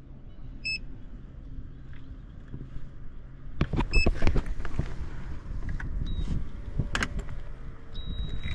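Car sounds over a steady low hum: two short electronic beeps about three seconds apart, with clunks and clicks around the second beep and again a few seconds later, then a steady high tone near the end.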